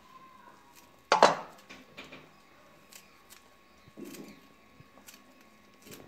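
Kitchen scissors snipping bunches of damp fresh fenugreek (methi) leaves over a plate: a few scattered snips, the sharpest and loudest about a second in.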